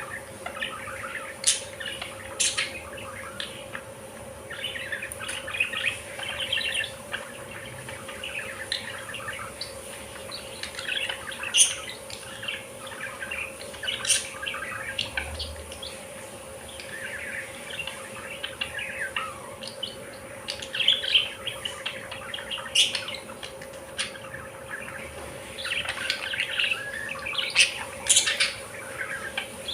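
A flock of budgerigars chattering and chirping: overlapping warbles with frequent sharp squeaks, over a steady low electrical hum.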